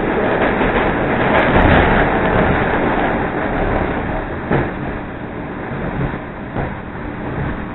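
CTA Red Line rapid-transit train heard from inside the car, running along the track with a steady rushing rumble of wheels and running gear. It is loudest a second or two in, with a few sharp knocks, one about halfway through.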